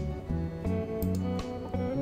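Background music led by plucked guitar, with a bass line under it.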